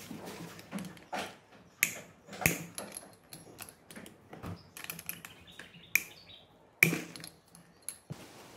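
Hand tools clicking and clinking on metal as a long-handled socket tool undoes the stator mounting screws on a Honda Dio 50cc two-stroke engine. The clicks come irregularly, with a few sharper metallic knocks about two, two and a half, six and seven seconds in.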